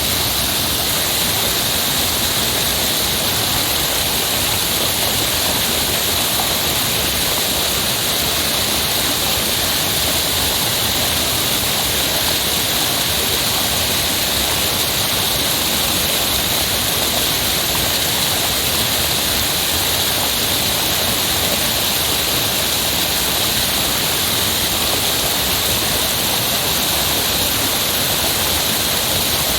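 Heavy rushing water, a steady even hiss with no breaks or changes.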